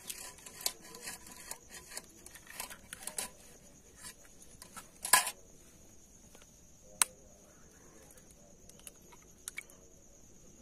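Eggs being cracked against a steel knife blade over a bowl: a run of small taps and clicks, then a sharp crack about five seconds in, the loudest sound, and another single sharp tap about two seconds later.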